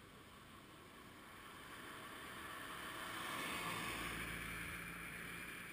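A vehicle passing by: road and engine noise swells over a few seconds, peaks with a low hum past the middle, then fades away.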